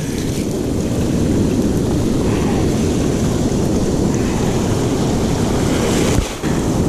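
Wind buffeting the microphone over the steady wash of surf against the rocks, with a brief lull about six seconds in.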